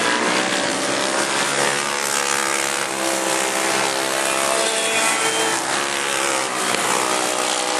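Several racing go-kart engines running together at speed, their overlapping notes rising and falling in pitch as the karts circle the track.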